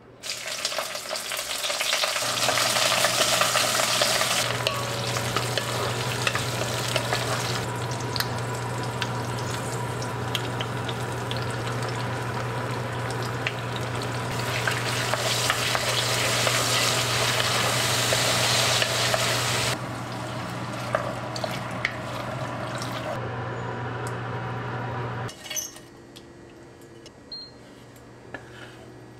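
Scallion, ginger and garlic sizzling and frying in hot oil in an enamelled pot while being stirred, over a steady low hum. The sizzle stops abruptly about 25 seconds in, leaving a quieter stretch with a few light clicks.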